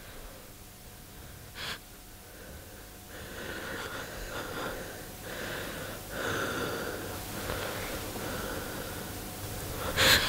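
A person breathing hard in a run of short, irregular breaths. A loud, sharp noise comes right at the end.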